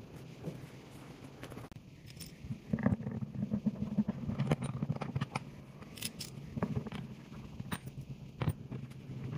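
Scattered clicks, knocks and scrapes of hands working on the wooden seat frame of a flat-pack upholstered armchair turned upside down while bolts are fitted to the rail, over a low steady hum that grows louder about three seconds in.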